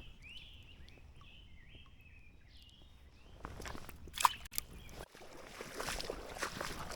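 Small birds chirping faintly in short repeated notes, then rustling and crackling movement noise close to the microphone with a sharp click about four seconds in, growing louder near the end, typical of wading and handling gear in a creek.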